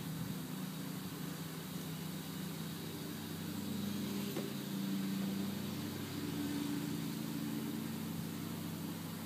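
A steady engine hum that swells a little in the middle and eases off again.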